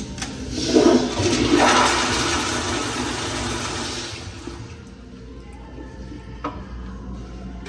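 Kohler Highcliff Ultra flushometer toilet flushing: a sudden rush of water starts about a second in, is loudest for the next second, and trails off over about three seconds.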